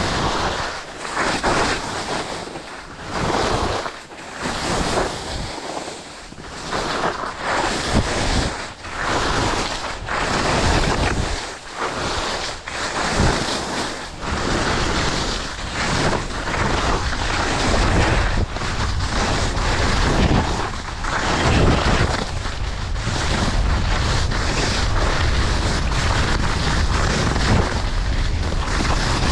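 Wind rushing over the microphone of a skier's helmet or chest camera at speed, mixed with ski edges scraping on hard-packed snow. For about the first half it swells and dips every second or two with the turns; after that it settles into a steadier, heavier low rush.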